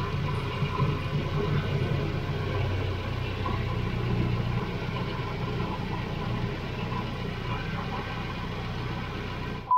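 Volvo B230 redblock 2.3-litre four-cylinder engine idling steadily with its oil filler cap off, as a rubber glove is worked over the filler opening to test for excess crankcase pressure.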